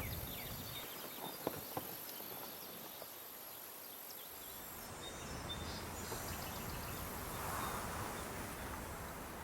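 Faint outdoor background noise with a steady high-pitched hum and two short clicks about a second and a half in.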